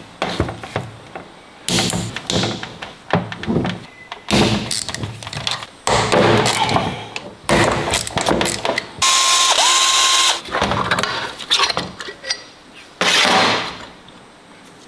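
Hand tools working on a BMW S85 V10 oil pump as it is taken apart: irregular ratchet clicks, knocks and metal parts clinking. About nine seconds in, a steady hiss with a thin whistling tone lasts over a second.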